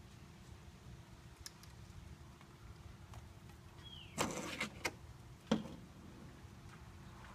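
Mechanical handling noise from a homemade slingbow fitted with a fishing reel. About four seconds in there is a brief falling squeak, then a loud rattling burst, then two sharp clicks.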